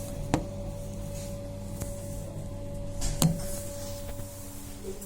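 A steady low hum with two sharp clicks or knocks, the second, about three seconds in, the louder.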